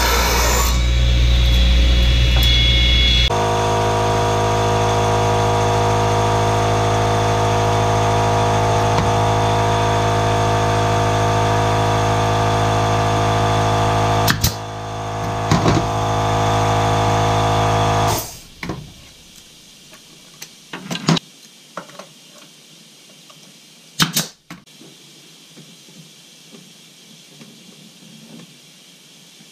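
Woodshop power tools: a table saw cutting an old pine board at first, then a steady electric motor hum broken by a few sharp pneumatic brad-nailer shots. The hum stops abruptly about two-thirds through, leaving a few more sharp nailer shots and knocks.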